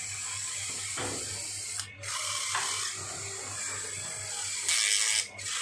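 Small electric motors and plastic gearing of a toy RC excavator whirring steadily, with a louder half-second burst of hissing near the end.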